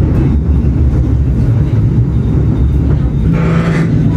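Running noise on board the Western Train tram: a loud, steady low rumble of wheels on rail, with a brief higher-pitched sound a little after three seconds in.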